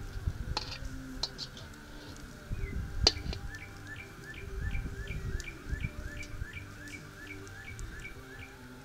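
A bird calling a long run of short, evenly spaced chirps, about three a second, starting a couple of seconds in, with a few sharp pops and crackles from a campfire.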